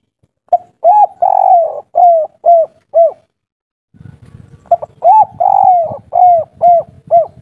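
Spotted dove (tekukur) singing its 'kuk 3' song twice: each phrase is a short note, a rising coo, a long drawn coo, then three short 'kuk' notes. A low rumbling noise runs under the second phrase.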